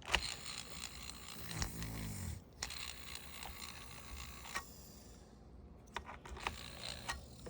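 Small 60 CFM exhaust fan motor plugged in and running faintly with a steady hiss and thin whine, stopping about four and a half seconds in; a few sharp clicks of handling follow.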